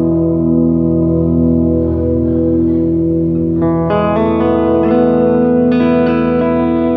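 Electric guitar through a Line 6 HX Stomp multi-effects unit playing an ambient patch: held, reverb-washed notes, one swelling and fading about once a second. New, brighter notes are layered on a little past halfway and again near the end.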